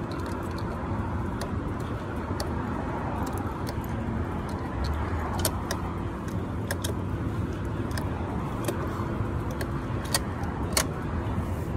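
Steady low vehicle rumble, with a scatter of short sharp clicks as buttons on a Harley-Davidson touring motorcycle's fairing are pressed.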